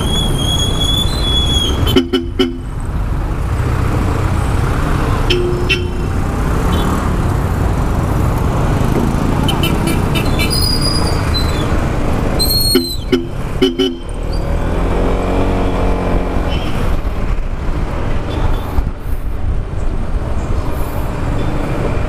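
Bosch Europa twin-tone horn on a Yamaha XMAX scooter giving short beeps: one at about 2 seconds, another at about 5 seconds, and three quick beeps in a row near 13 seconds, over steady scooter engine and street traffic noise.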